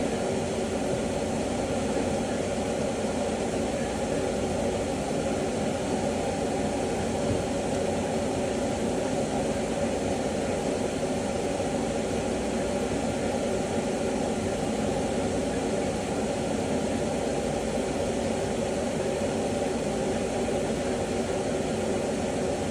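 Burgers frying in oil in a pan, a steady sizzle over a constant hum.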